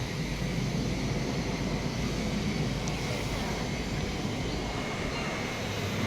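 Steady, low rumble of the Surya Kiran team's BAE Hawk jet trainers flying their display.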